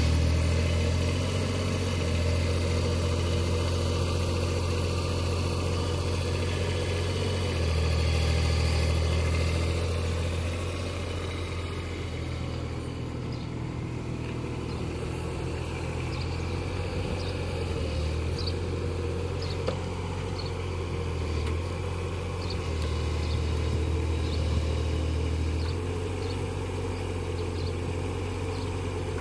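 Kubota U15-3 mini excavator's diesel engine running under hydraulic load, its steady low hum swelling and dropping every few seconds as the boom and tracks work to climb the machine onto a pickup's bed.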